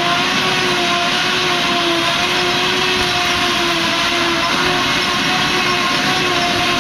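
Self-propelled Claas forage harvester picking up and chopping grass and blowing it into a trailer: a steady mechanical drone with a whine that wavers slightly in pitch.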